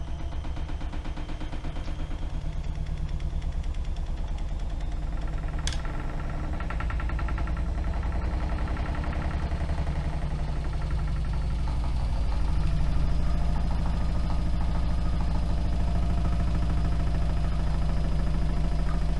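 AEG Öko-Lavamat washing machine spinning, its motor whine rising slowly in pitch while the drum runs with a fast, even rumble that grows louder. The machine has a replacement motor that limits the spin to 1000 rpm instead of 1600.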